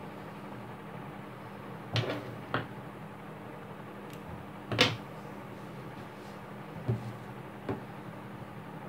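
A few short knocks and bumps from the white plastic-pipe embroidery frame being handled and shifted, the loudest about halfway through, over a steady background hiss and hum.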